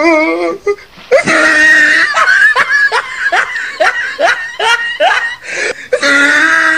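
A person laughing: a long high-pitched squeal about a second in, then a run of quick laughing bursts about three a second, and another squeal near the end.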